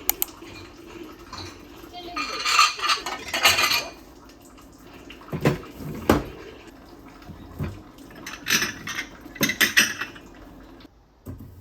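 Metal cutlery clinking and scraping against dishes in bursts, with a few single sharp clinks between them, as food is served and eaten.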